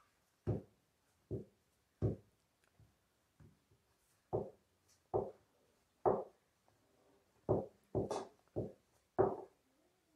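A rolling pin worked back and forth over stiff samosa dough on a granite counter: about a dozen short knocking strokes, roughly one every half second to second, with quiet gaps between.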